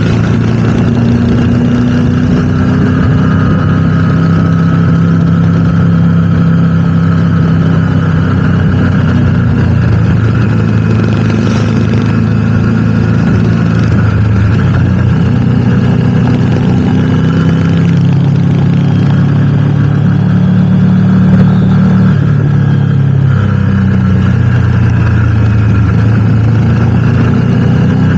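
Motorcycle engine running on the move, its pitch rising and falling gently as the throttle and speed change.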